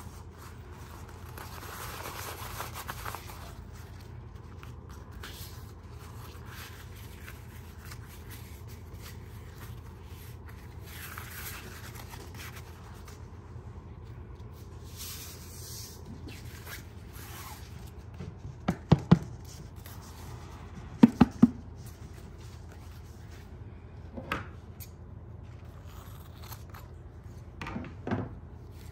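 Hands rustling and rubbing a soft woven polyester backlit fabric sample as it is unfolded and smoothed flat on a table. In the second half come several short, sharp taps, the loudest sounds here, with two close pairs.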